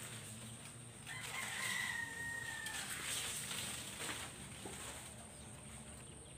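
A rooster crowing once, a long held call starting about a second in and lasting under two seconds, over a faint steady high whine.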